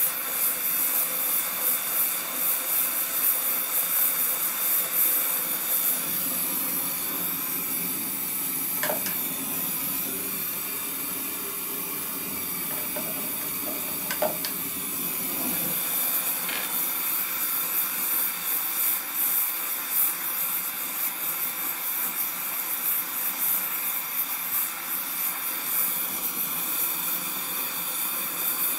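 Gas torch flame hissing steadily as it heats a steel fitting for hard soldering. The hiss softens for about ten seconds in the middle, with a few faint ticks.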